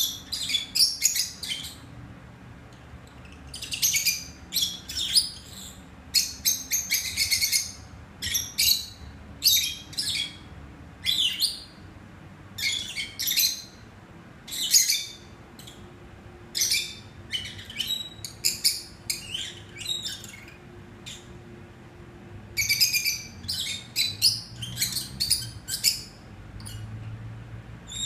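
Peach-faced lovebirds chirping: rapid clusters of short, shrill, high-pitched chirps, broken by pauses of about a second.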